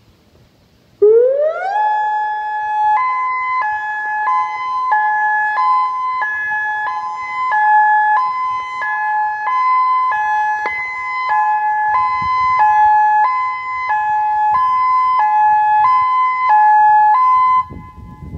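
Federal Signal Modulator 8032B outdoor warning siren sounding its hi-lo alert tone. About a second in it ramps up in pitch, holds one tone briefly, then alternates between two close tones about every two-thirds of a second. It cuts off abruptly near the end.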